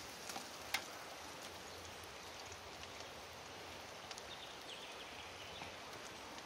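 Snow peas sizzling steadily in hot oil in a frying pan on a gas camp stove, with a light click a little under a second in.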